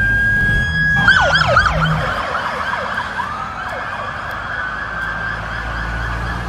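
Police car siren passing: a high steady wail that switches about a second in to a rapid yelp of quick repeated downward sweeps, then slows and fades as the car moves off.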